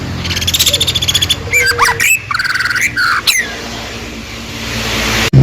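Songbird calling: fast trills and sharp, sweeping chirps in quick succession, over a steady low hum. Near the end the calls stop and a hiss swells, then breaks off suddenly.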